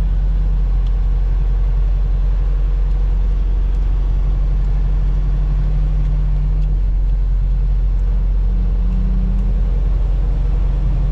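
Freightliner semi truck's diesel engine and road noise heard inside the cab: a steady low drone while rolling in slow traffic. The engine tone shifts slightly around the middle.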